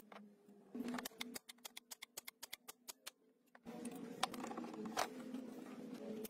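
Hand tools working on a rusty diesel engine: a quick run of sharp, irregular clicks and taps on metal. About three and a half seconds in, a steady hum with a few louder knocks takes over.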